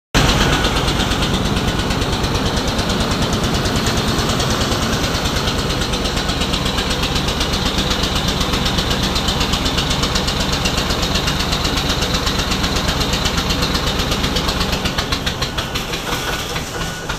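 Perkins diesel engine running with a loud, fast, even firing beat that turns a little uneven near the end. It is pouring out heavy smoke, a black-smoke fault the owner puts down to the injectors.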